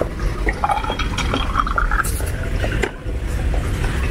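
A drink being poured into a glass, with light clinks.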